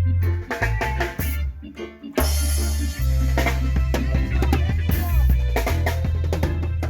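Live band playing at a sound check: drum kit, deep bass notes and keyboard. The music thins out briefly, then a cymbal crash about two seconds in brings the full band back in.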